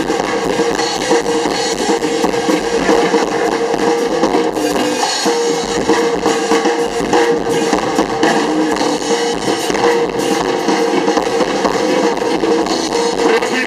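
Live blues-rock band playing an instrumental passage over the PA: drum kit, guitars, violin and harmonica, with a held note running through most of it.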